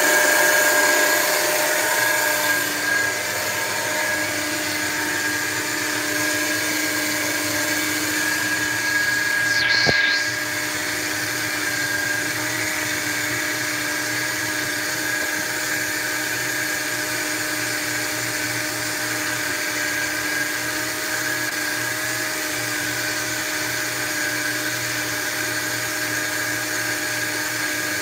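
Countertop blender motor running at speed, blending a thick concentrate of Irish moss, lemon, aloe and honey. Its note shifts briefly about ten seconds in, then it runs on a little quieter.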